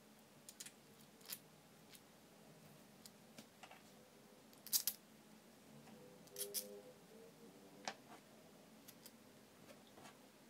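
Sparse small clicks and taps of a metal shaft and 3D-printed plastic parts being fitted together by hand, with a sharp double click a little before halfway and a short ringing clatter soon after.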